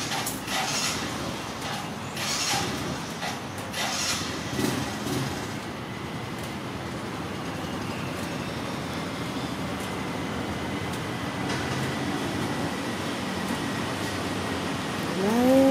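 Steady background noise, with a few short hissy bursts in the first few seconds and a single short rising call right at the end.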